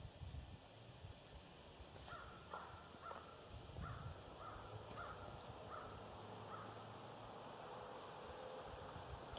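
Faint outdoor ambience: a crow cawing in a steady series of about seven calls, roughly one and a half a second, with thin high chirps of small birds now and then and a few low thuds.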